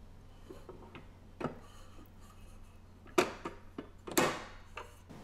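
A few sharp clicks and knocks from the Cuisinart WAF-600C waffle maker being handled by hand, its lid closed and its handle gripped, the loudest two about three and four seconds in. A faint low hum underneath.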